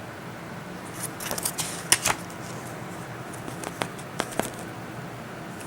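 Paper promotional inserts and Blu-ray packaging being handled: a cluster of crisp rustles and clicks about a second in, then a few scattered clicks later.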